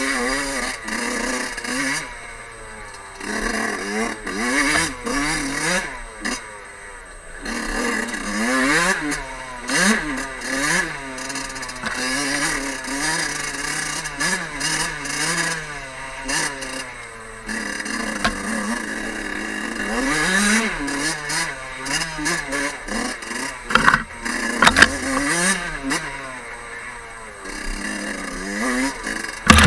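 Fantic 50 Scuderia's small two-stroke engine revving up and down over and over as the bike is ridden along a rough dirt trail, easing off now and then. About three-quarters of the way in come a few sharp knocks.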